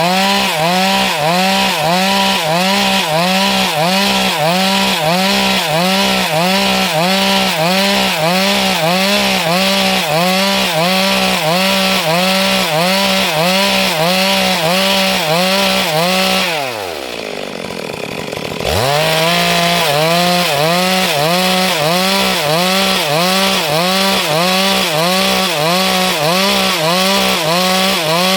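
Stihl MS 382 two-stroke chainsaw running at high revs while cutting wood, its note rising and falling in a quick, regular rhythm. About 17 seconds in the engine note drops away, and about two seconds later it comes back at full speed.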